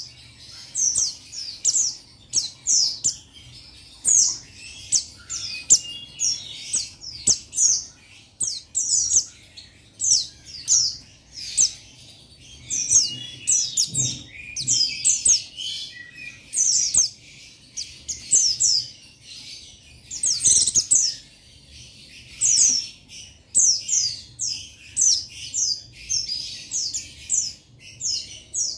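Male white-eye (pleci buxtoni) singing its challenge call to rivals: quick clusters of short, thin, very high chirps, each note sliding down in pitch, following one another with brief gaps.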